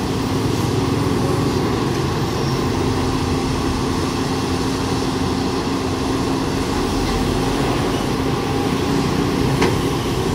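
Volvo crawler excavator's diesel engine running steadily with a constant hum as the machine digs and moves mud, with one brief click near the end.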